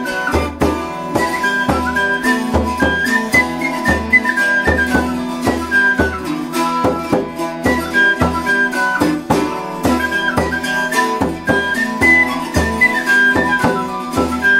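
Instrumental background music in a traditional folk style: a stepping melody over a steady plucked rhythm and pulsing low bass notes.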